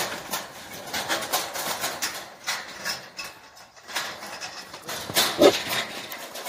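Several wild boars caught in a steel wire-mesh cage trap, shifting about and knocking and rattling against the mesh in many short sharp clatters. One loud boar call sounds about five seconds in.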